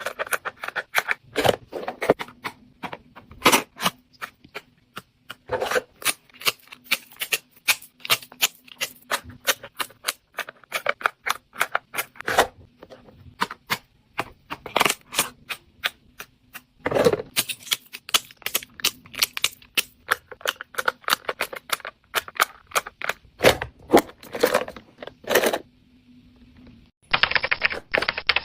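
Dense, irregular clicking and tapping of small hard objects being handled, such as plastic packaging and product cases being opened, over a faint steady hum. Near the end comes a short stretch of rustling noise.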